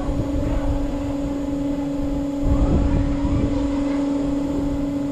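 Amusement ride machinery running with a steady mechanical hum, and low rumbling wind on the microphone that grows stronger about halfway through.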